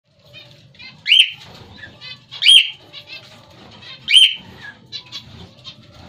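Caged pet birds, lovebirds, cockatiels and finches, calling. Three loud, sharp calls about a second and a half apart, each rising then falling in pitch, sound over a constant soft, high chirping.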